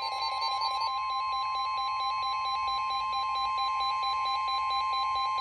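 Weather radio warning alarm: a steady electronic tone of about a thousand hertz with a rapid pulsing beep over it, sounding ahead of the next high wind warning broadcast.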